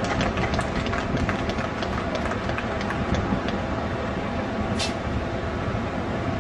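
Steady mechanical rumble with quick rattling clicks, and one short sharp hiss a little after the midpoint.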